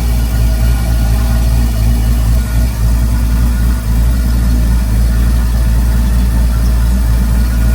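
Car engine idling steadily while it warms up toward operating temperature.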